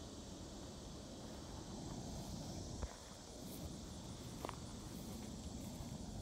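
Steady high-pitched buzzing of summer insects, with the soft tread of footsteps on grass underneath and two light clicks, about three and four and a half seconds in.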